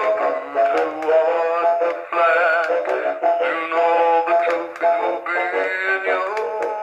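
Sound Tactics animatronic rock-along golfer toy playing its recorded song: a male voice singing over a backing track, thin with little bass.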